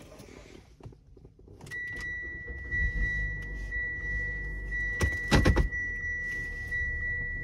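A steady high electronic warning tone sounds in a Mitsubishi Outlander's cabin, starting about two seconds in and holding on. A low engine rumble comes in shortly after, and a brief loud clatter comes about five seconds in.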